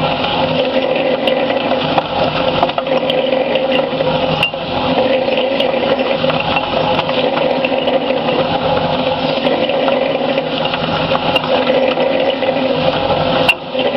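Concrete mixer used as a ball mill, its charge of heavy steel balls, nuts and rod tumbling and clattering through incinerated metal chips in a steady, dense rattle. The noise dips briefly near the end.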